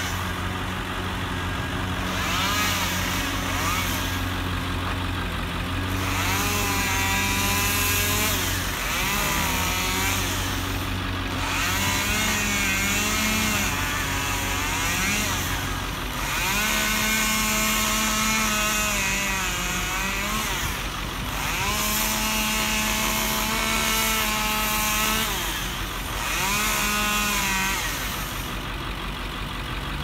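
A chainsaw revving up, holding and dropping back several times while cutting, over the steady low hum of the bucket truck's engine. The engine hum stops about halfway through.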